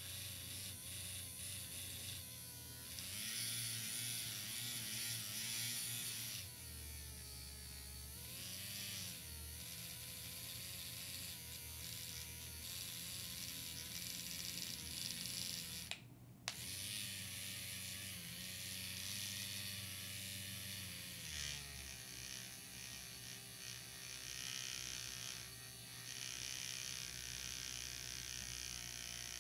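Norpro handheld battery mixer buzzing as its wand spins in a small plastic bottle of e-liquid, the motor's pitch wavering as it mixes. It cuts out for a moment a little past halfway and starts again.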